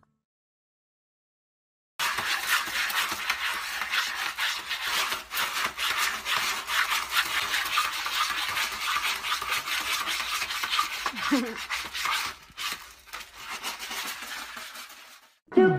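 A cat digging and scratching in a plastic litter box of pellet litter: a steady gritty rustle of pellets scraped and scattered, starting about two seconds in and stopping just before the end.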